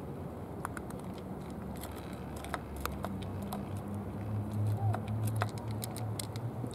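Cats eating from foam food trays: irregular wet clicks and smacks of chewing and lapping. A low hum swells in the middle and eases off.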